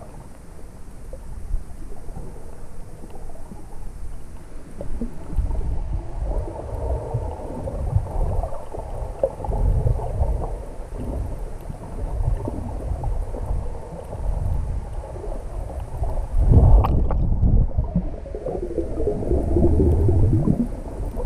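Muffled water noise heard through a camera microphone held underwater: uneven low rumbling swells and sloshing, loudest a little past three quarters of the way through, with a wobbling gurgle near the end.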